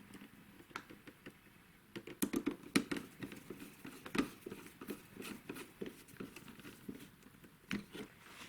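Hands handling computer parts and packaging: an irregular run of small clicks, taps and crinkles, busiest from about two seconds in to near the end.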